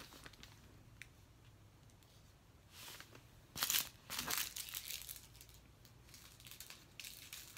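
Small plastic bags of diamond painting drills crinkling as they are handled, in several short bursts with quiet between; the loudest comes about three and a half seconds in.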